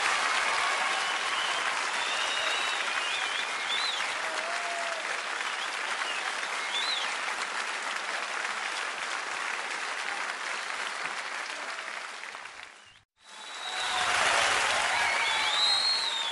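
Studio audience applauding, with a few whistles. The applause fades, then cuts off abruptly at an edit about 13 seconds in. After a brief gap, fresh applause starts and swells.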